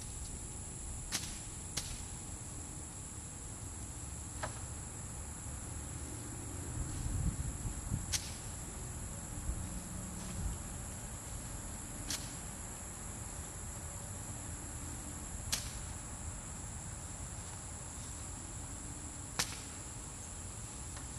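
Crickets trilling steadily and high-pitched, with about seven sharp single knocks a few seconds apart and a brief low rumble around the middle.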